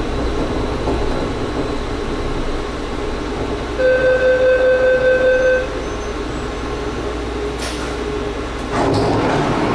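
Running noise inside a rubber-tyred Taipei Metro Brown Line train car. An electronic beep sounds for about two seconds near the middle, and the running noise gets louder near the end.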